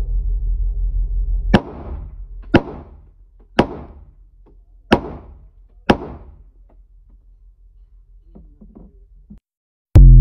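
Five gunshots on an indoor range, about a second apart, each echoing off the walls. A steady low rumble runs under the first second and a half.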